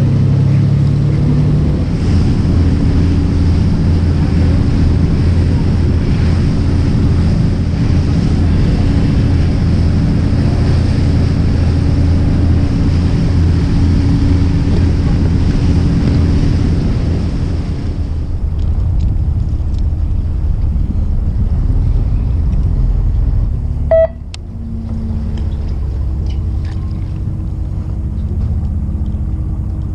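Fishing boat's engine running steadily under way, with wind and water noise over it. About two-thirds of the way through the wind and water noise falls away and the engine settles to a lower steady hum. A single sharp knock comes near the end.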